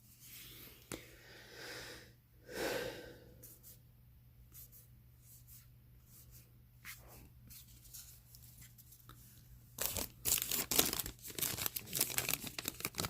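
Foil trading-card pack wrapper being torn open and crinkled, a quick run of crackling tears starting near the end. Before that, mostly quiet handling, with one short soft rush about two and a half seconds in.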